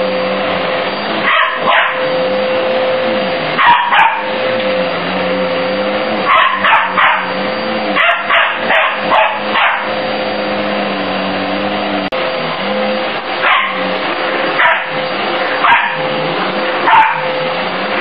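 A Border Terrier puppy barking at a running upright vacuum cleaner, again and again, sometimes in quick runs of several barks, over the vacuum's steady motor hum.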